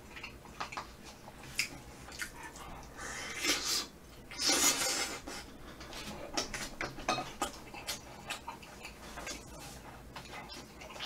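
Close-up eating sounds: chopsticks clicking against a paper cup and wet chewing of spicy braised chicken, with a louder rushing sound, a slurp or breath, about four and a half seconds in.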